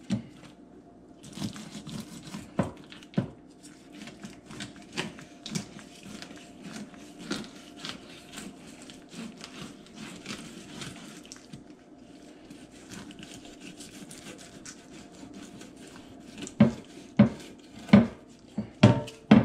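Fillet knife cutting a yellowfin croaker on a wooden cutting board: a run of small scrapes, clicks and crackles as the blade works through skin and along the bones, with several sharper knocks on the board near the end.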